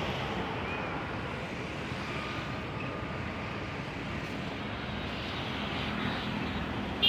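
Steady outdoor hum of distant vehicles, with no single sound standing out.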